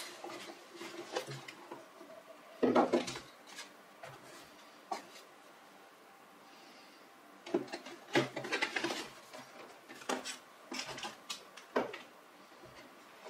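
Hands unpacking a laptop box: a stiff cardboard box tray and inserts being handled, and a power adapter, cable and plug set down on a wooden tabletop. The result is irregular clicks, rubbing and knocks, with the loudest clatter about three seconds in.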